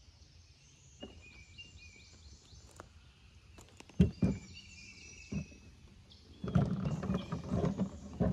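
Small birds chirping over a quiet wooded creek, with a sharp knock from the small skiff about four seconds in. About two seconds before the end, a louder rough run of water and hull noise from the moving boat starts up.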